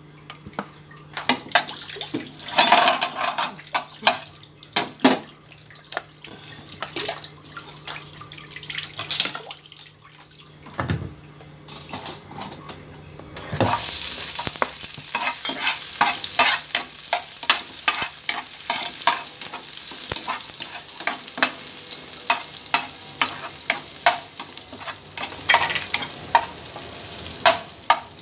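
Clicks and knocks of a spoon in a nonstick frying pan of heating oil. About halfway through, chopped garlic goes into the hot oil and starts sizzling steadily, with the spoon scraping and tapping the pan as the garlic is stirred.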